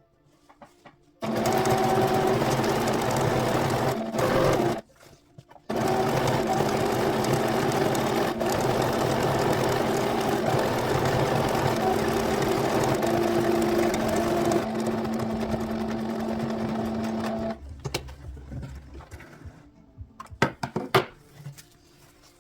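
Noisy domestic sewing machine stitching in runs. It starts about a second in, stops briefly around five seconds, then runs steadily for about twelve seconds before stopping. A few sharp clicks follow near the end.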